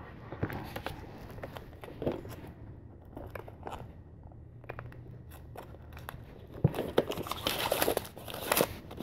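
Plastic shrink wrap being handled, torn and peeled off a Blu-ray steelbook case: scattered crinkles and clicks, busier and louder from about two-thirds of the way in.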